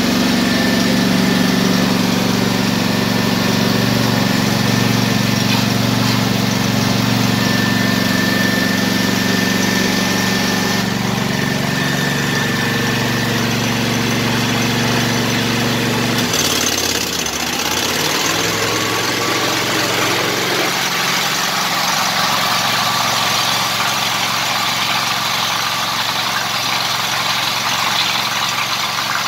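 Seco Starjet P4 lawn tractor engine running steadily at idle. About halfway through, its note dips and wavers for a second or two, then settles into a different steady sound with more hiss.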